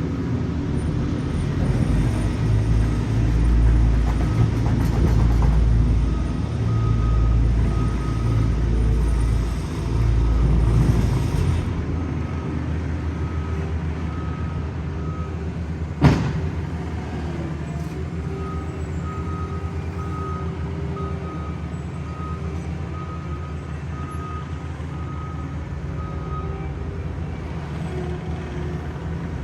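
Heavy asphalt-paving equipment engines running with a deep rumble, louder for the first dozen seconds and then easing down. A single sharp bang comes about sixteen seconds in, and a reversing alarm beeps repeatedly in the later part.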